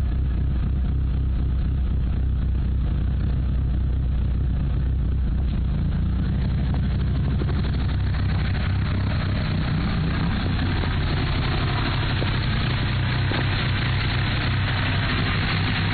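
Mitsubishi Lancer Evolution III's turbocharged four-cylinder engine idling roughly, which the owner suspects is from bent valves. A hiss grows in over the steady running from about halfway through.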